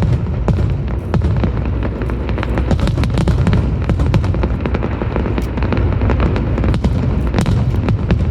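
Fireworks display going off: a continuous low rumble of bursts with many sharp crackling pops, several a second.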